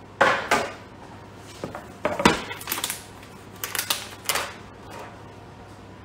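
Hard plastic polycarbonate chocolate bar mold being turned over and knocked against the countertop to release the bar: a series of sharp clacks and taps in several clusters, the loudest at the start and about two seconds in.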